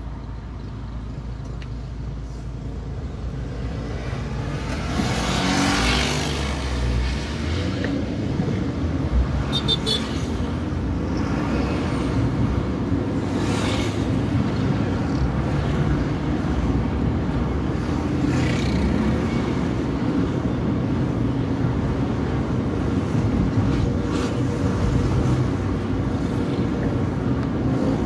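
Car engine and tyre noise heard from inside the cabin as the car pulls away from a traffic light and drives on. The noise grows louder about four seconds in, then stays as a steady road drone.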